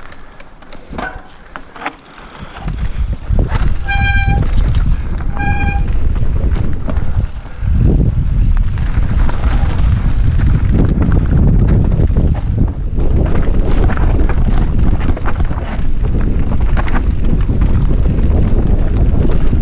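Mountain bike descending dirt singletrack: wind buffeting the helmet-mounted camera's microphone and the tyres and frame rumbling and rattling over roots and rocks, loud and steady from about eight seconds in as speed picks up. Two short beeps sound near four and five and a half seconds in.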